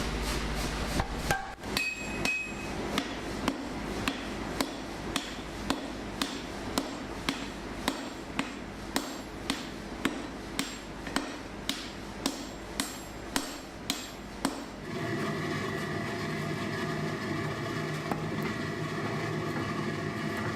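Blacksmith's hammer striking steel at a steady pace of about two blows a second, each blow ringing briefly. The blows stop about 15 seconds in, and a steady humming sound with several held tones follows.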